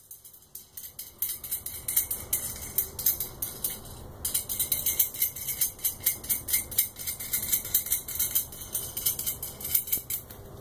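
M10 nut and washers being spun by hand along a steel threaded rod, rattling on the threads in a rapid metallic clicking and jingling, with a brief pause about four seconds in.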